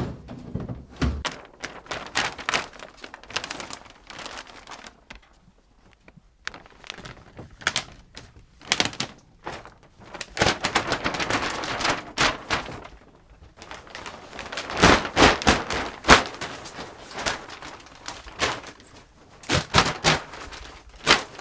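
Gear being handled and put away: a long run of knocks, thunks and clatter, with stretches of scraping and rustling in the middle.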